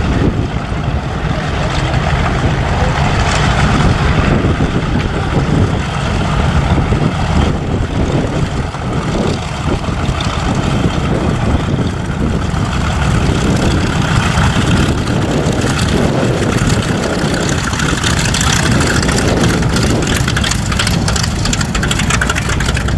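A heavy engine running steadily.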